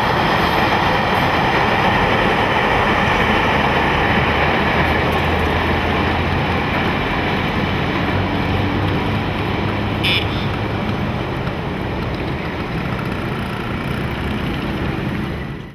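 Delhi Metro train running along an elevated viaduct as a steady rumble and hiss that slowly grows fainter. A brief high-pitched sound comes about ten seconds in, and the sound cuts off abruptly at the end.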